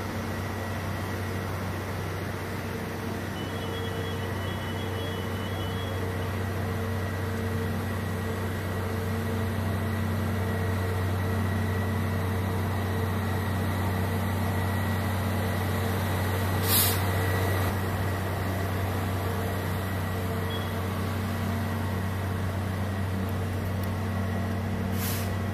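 Steady low rumble of heavy engines running, with a few faint steady tones over it. Two short sharp clicks break through, one past the middle and one near the end.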